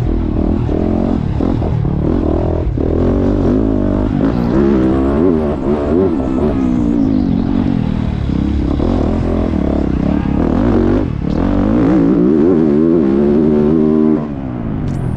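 Onboard sound of a Yamaha YZ450F four-stroke motocross bike ridden hard around a dirt track: the engine revs up and down again and again as the rider opens the throttle, shifts and rolls off. The engine note drops briefly a little past eleven seconds in and again near the end.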